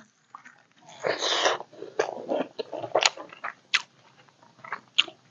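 A person eating: chewing and mouth sounds in short irregular spells, with a few sharp clicks.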